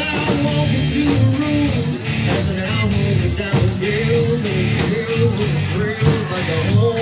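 Live rock band playing loud and steady: electric guitar, bass and drum kit coming through the venue's amplification.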